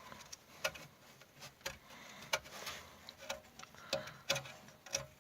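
Irregular light clicks and taps, about two a second, from rear parking-brake parts being handled and moved by hand.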